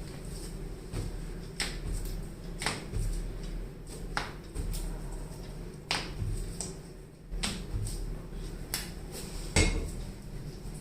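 A series of sharp clicks at uneven intervals, about one a second, during chiropractic work on a patient, the loudest near the end, over a steady low hum.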